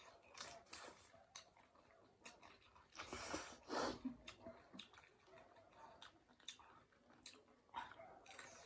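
Quiet mouth sounds of eating noodles and raw vegetable salad: soft wet smacking clicks of chewing, with a louder breathy noise about three seconds in.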